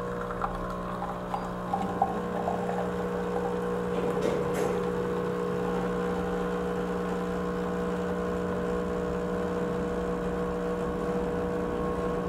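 Nescafé Dolce Gusto Genio S capsule machine's pump humming steadily as it dispenses frothy milk into a glass mug. There are a few spluttering crackles in the first couple of seconds.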